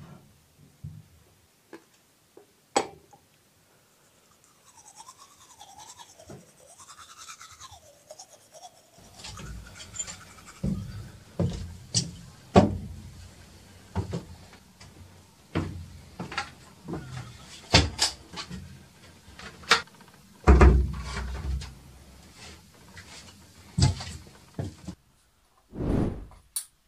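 Irregular knocks, rubs and bumps of close handling, with a sharp click about three seconds in and a faint wavering whine between about four and nine seconds. From about nine seconds on come denser thuds and scrapes, the heaviest near the end.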